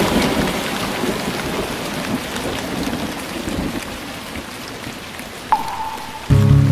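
Rain falling, a steady hiss that slowly fades. A brief tone sounds about five and a half seconds in, and music starts again just before the end.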